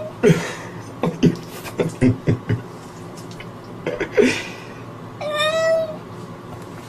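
A cat making a run of short, odd calls with falling pitch, two more a little later, then one longer steady meow about five seconds in.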